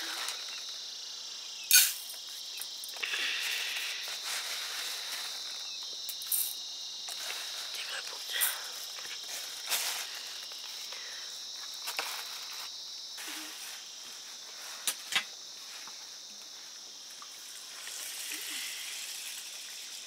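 A steady, high-pitched chorus of insects, with sharp knocks and clicks now and then, the loudest about two seconds in and a quick pair about fifteen seconds in.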